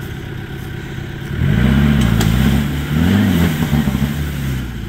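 Land Rover Discovery 300Tdi's 2.5-litre four-cylinder turbodiesel engine idling, then revved hard twice from about a second and a half in, its pitch rising and falling, before easing back near the end. The vehicle is stuck in a muddy ditch with its front wheel spinning and throwing mud.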